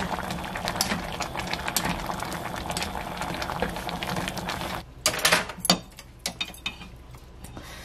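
A spatula scraping and stirring along the bottom of a stainless steel pot of thick, simmering noodle soup, to keep the noodles from sticking. The stirring stops about five seconds in with a few sharp knocks, and the soup then bubbles quietly.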